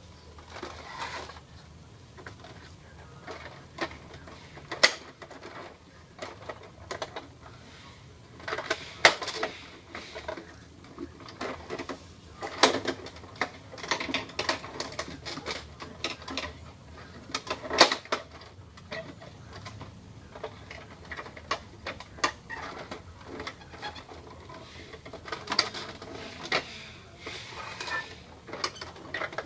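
Irregular clicks, taps and rattles of hands handling the plastic parts inside an Epson L210 inkjet printer with its scanner unit lifted, with a few sharper knocks among them.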